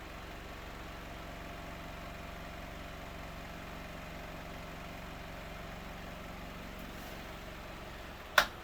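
Windmere KD-12 12-inch table fan running steadily on high speed, a motor hum with the rush of the blades; the blade seems a bit out of balance. A single sharp click near the end.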